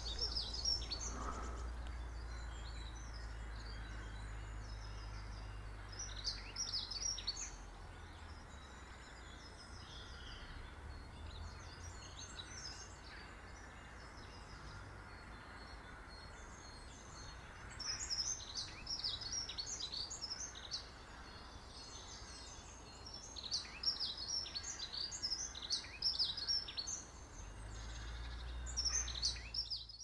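Small songbirds singing in several bursts of quick, high chirps, busiest over the last ten seconds, with a low rumble underneath at the start and again near the end.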